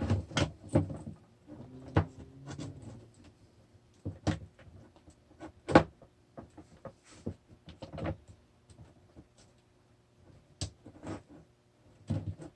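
Irregular clicks and light knocks from hands handling parts while fitting the Onewheel Pint's sensor pad cable connector.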